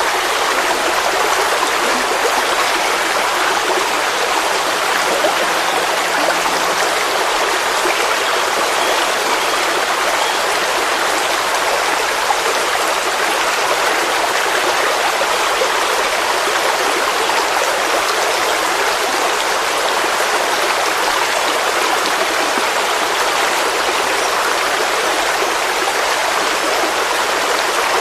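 Forest stream flowing: a steady, even rush and babble of running water with no pauses or changes.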